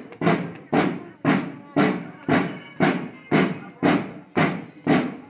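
Parade marching drums beating a steady march rhythm, about two heavy strokes a second, each ringing out briefly.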